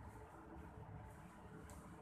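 Near silence: a low steady room hum, with faint soft mouth sounds of a man eating cake and licking his fingers, including one small smack near the end.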